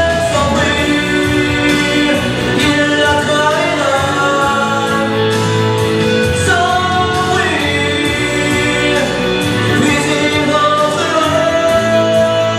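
Man singing a song live into a handheld microphone, his sung notes sliding and held, over a sustained instrumental backing.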